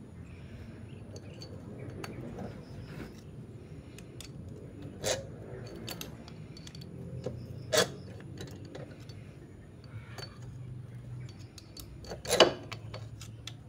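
Small metallic clicks and clinks of a motorcycle timing chain, cam sprocket and a thin metal hand tool being worked at a single-cylinder engine's head, with three sharper clanks about five, eight and twelve seconds in.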